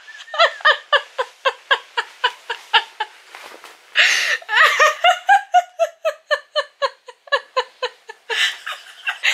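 A woman in a helpless fit of laughter, breathy pulses about four a second, with a gasping in-breath about four seconds in before the laughing starts again.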